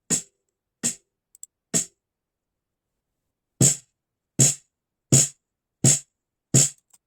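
Snare drum struck with single hits: three softer strokes, a pause of nearly two seconds, then five louder, evenly spaced strokes. The snare's top head is tuned lower than the player wants; he judges it should go higher.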